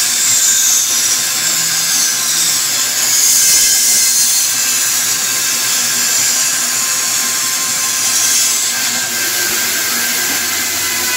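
Bandsaw running and cutting a curved line through a wooden board, its high hiss rising and falling as the wood is fed into the blade. Near the end the cut is through and the saw runs on steadily without load.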